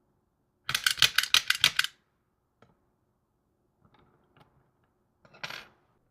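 A rapid run of about nine sharp clicks lasting just over a second, then a few faint taps, and a short hissing burst near the end.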